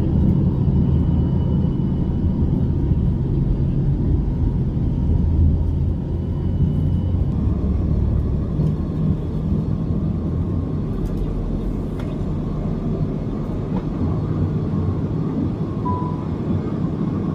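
Jet airliner's engines at takeoff power heard from inside the cabin: a loud, steady rumble through the takeoff roll and into the climb, easing slightly about six seconds in.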